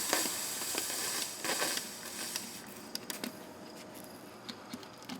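Torch flame hissing, dying away over the first two to three seconds, followed by a few light clicks and taps.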